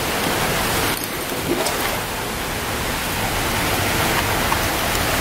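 Steady rush of water at a garden pond, with a few faint splashes.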